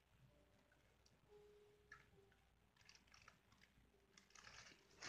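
Near silence: faint room tone with a few soft clicks and rustles, and a faint hum that comes and goes.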